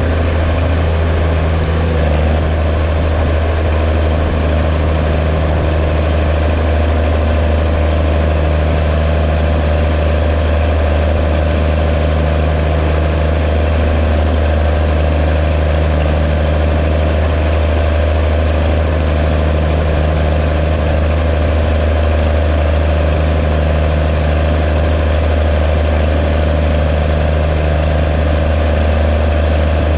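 Allis-Chalmers D17 diesel tractor's six-cylinder diesel engine running at a steady, unchanging speed with a deep, loud drone, pulling a disk across the field.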